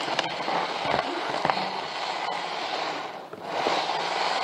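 N-gauge model train running along its track, heard from a camera riding on the train: a steady rolling rattle with occasional sharp clicks, dipping briefly about three seconds in.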